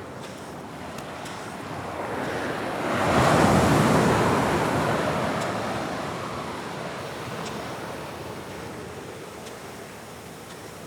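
Atlantic surf on a rocky beach: a wave builds, breaks about three seconds in as the loudest moment, then its wash slowly dies away.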